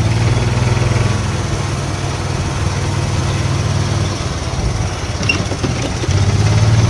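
Golf cart driving along a paved path, its small engine running with a steady low hum that grows louder about six seconds in.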